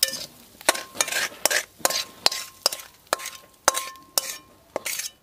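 Steel spatula scraping and clanking against a metal pan as it scoops up crumbly fried fish, about two strokes a second, several strokes leaving a short metallic ring.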